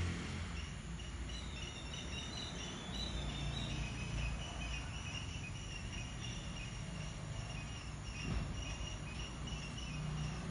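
Insects chirping in several overlapping high, pulsing trills that go on steadily, over a low rumble.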